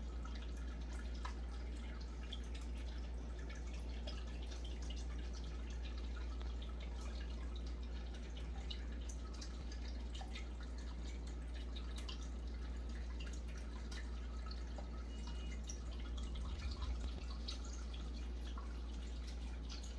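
Water dripping and trickling in a small turtle tank, heard as scattered little ticks over a steady low hum, with a brief low bump a few seconds before the end.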